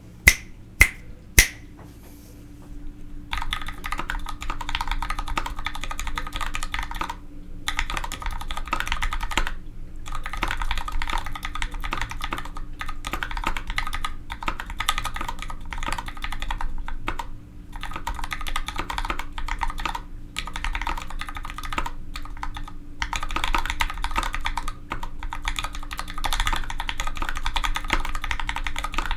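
Typing on a 65% mechanical keyboard with Gateron Ink Black linear switches and GMK Modern Dolch keycaps: fast, dense runs of keystrokes broken by brief pauses. Three loud sharp clicks come in the first second and a half, before the typing starts about three seconds in.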